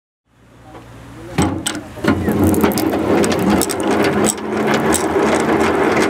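Hand-cranked geared honey extractor being turned, its gears clattering with irregular sharp clicks over a steady drone. The sound fades in, then runs on loudly.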